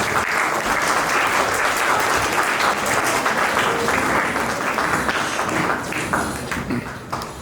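Audience clapping: applause that starts at once and fades away near the end.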